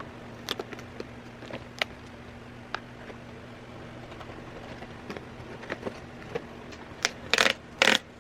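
Doll packaging being handled and opened: scattered small clicks and crinkles, then two loud rips near the end as the packaging is torn.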